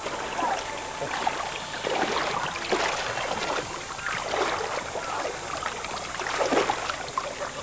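Shallow seawater splashing and sloshing, irregularly, around a wheelchair's wheels and the legs of a person wading as the chair is pushed into the sea.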